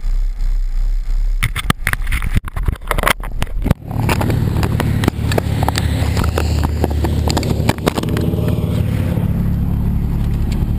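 Turbocharged Honda Civic engine running at low revs, heard from inside the cabin, with a run of clicks and knocks a second or two in.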